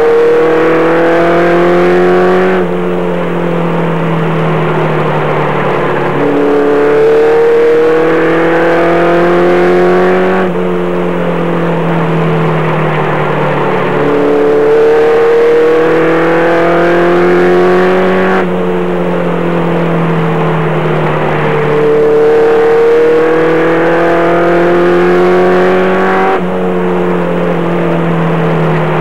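Race truck's engine heard from inside the cab while it laps a short oval. The pitch climbs for about four seconds, then drops sharply, over and over: the throttle is on down each straight and lifted for each turn.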